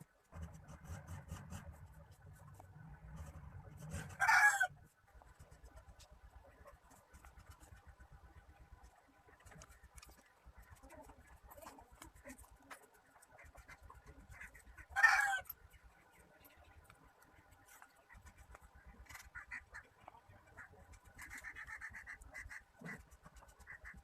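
A chicken calls loudly twice, each call short and about eleven seconds apart, with faint clicks and handling noises between them.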